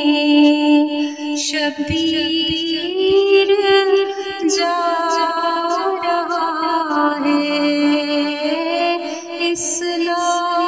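A voice singing an Urdu manqabat, a devotional poem in praise of the Prophet's family, in long held notes that step slowly up and down, with short sharp consonant hisses between the phrases.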